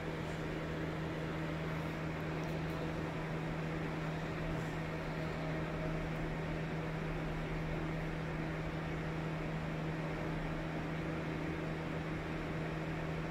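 A steady low hum with an even hiss of room noise behind it, unchanging throughout, like a fan or appliance running in the room.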